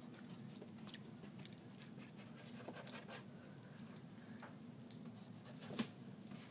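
Light scratching and tapping on a cardboard box, with one sharper knock near the end, over a steady low hum.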